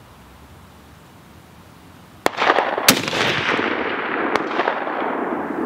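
Rifle shots from a Barrett MRAD Mk22 in .300 Norma Magnum and the range: a sharp report a little over two seconds in, a louder one about half a second later, and a fainter one near the end, each followed by a long rolling echo that slowly fades.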